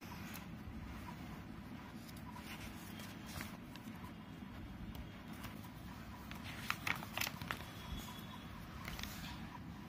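Paper pages of an instruction booklet being handled and turned, rustling and crackling, with the loudest crackles about seven seconds in, over a steady low background hum.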